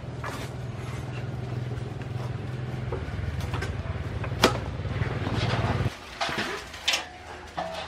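A small engine running steadily with a low hum, which cuts off suddenly about six seconds in. Scattered sharp knocks and clicks sound over it, the loudest about four and a half seconds in.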